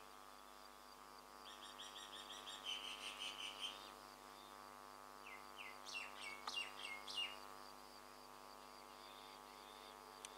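Small birds chirping: a run of rapid repeated notes about two seconds in, then a string of quick downward-sweeping calls around six to seven seconds in, over a faint steady hum.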